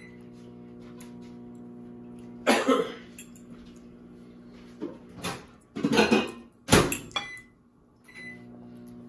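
A metal fork clatters and scrapes against a ceramic bowl several times, loudly, over a steady appliance hum that cuts out briefly near the end. There are a couple of short high beeps.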